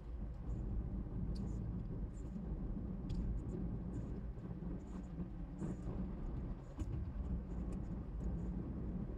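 Perodua Bezza car driving on a city road: a steady low rumble of engine and tyres, with scattered faint clicks.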